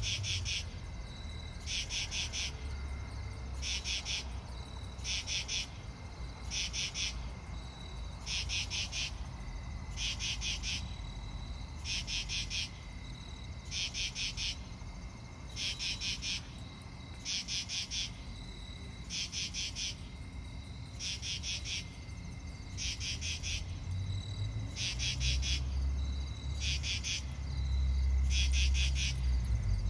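Katydid calling: short, raspy bursts of a few quick clicks each, repeated about once a second. A low rumble grows louder near the end.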